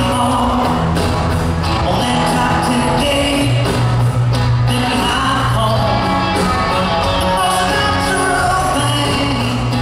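Live country-rock band playing through a PA in a large hall: a male singer over electric guitars, bass and drums, loud and continuous.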